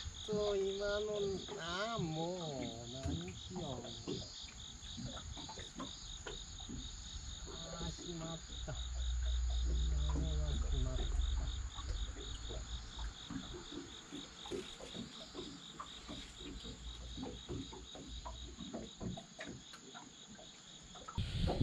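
A steady chorus of insects, high and rapidly pulsing. A wavering pitched sound comes in the first few seconds, and a low rumble comes around the middle.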